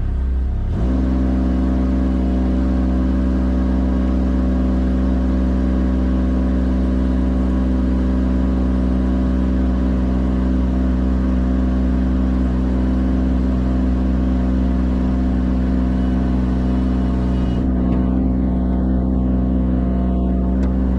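Engine running steadily at a raised speed, stepping up about a second in and holding an even drone throughout.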